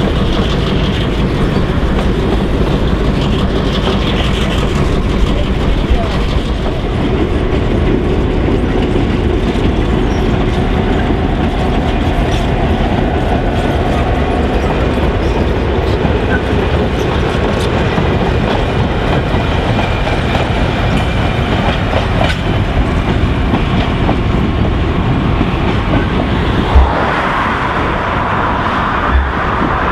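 A train, led by an EMD SD9 diesel locomotive pushing the Krauss-Maffei diesel-hydraulic 9010, rolling along: the diesel engine running steadily, with the wheels clicking over the rail joints. Near the end, a sharp knock and a car passing on the road.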